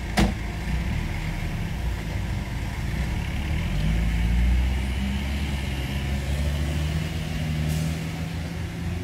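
Off-road racing buggy's engine running low and heavy as the buggy manoeuvres, its pitch rising about four seconds in and holding there. A short sharp knock is heard right at the start.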